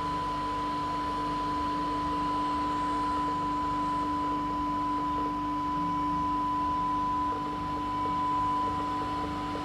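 Steady electronic test tone from radio test equipment: a continuous high pure tone with a second, lower steady tone beneath it, over a faint low hum.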